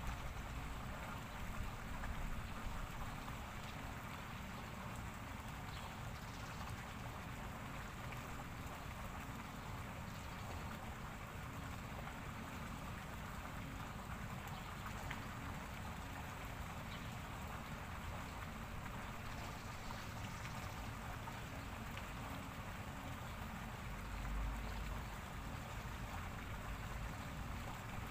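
Steady, even hiss of outdoor background noise, with low wind rumble on the microphone that swells twice, most strongly near the end.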